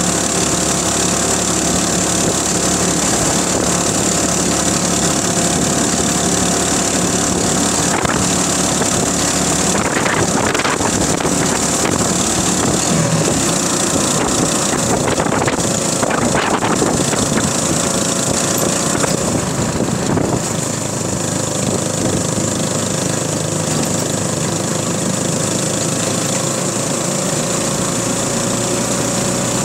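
Small motorcycle engine running steadily while riding along. Its engine note rises slowly over the last several seconds.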